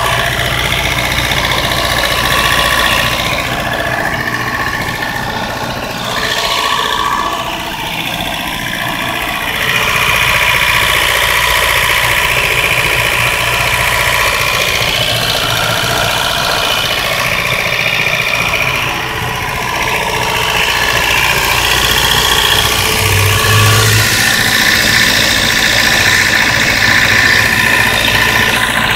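1992 Mazda 323's B6 1.6-litre four-cylinder engine running rough with a horrible misfire.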